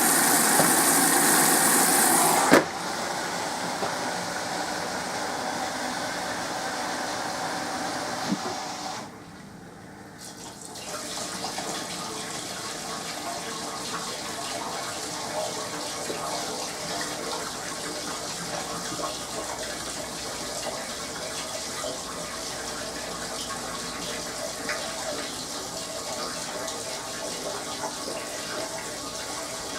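SMEG 11 kg washing machine taking in water: a loud hiss of water rushing in for about two and a half seconds, cut off with a click, then a steadier rush of water that dips away for a couple of seconds around the middle and resumes.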